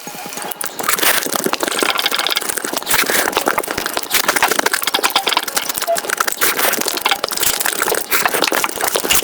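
Close-miked eating sounds played back at high speed: chewing and crunching that run together into a dense rattle of clicks.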